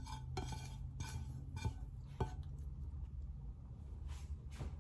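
A utensil clinking and scraping against cookware as little bits of chicken are spooned onto a salad: a handful of light taps spread through the moment, over a low steady hum.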